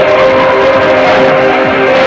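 Instrumental music for a pairs figure skating program, with held notes.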